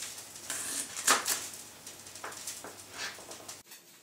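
Chef's knife cutting a fennel bulb on a plastic chopping board: several separate short knocks of the blade through the bulb onto the board. A faint steady background hum cuts off abruptly near the end.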